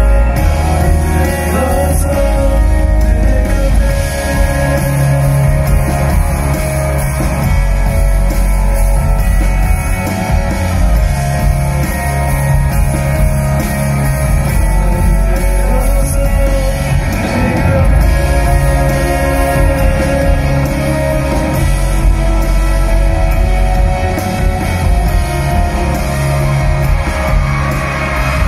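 Male vocalist singing a slow ballad live over band accompaniment, played loud through a concert PA system.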